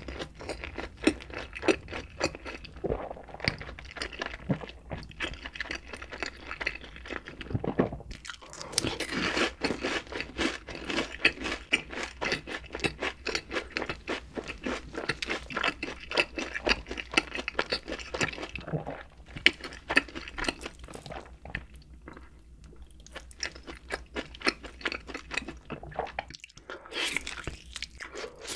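Close-miked eating: crunchy food being bitten and chewed in a dense run of crunches, easing off for a few seconds near the end.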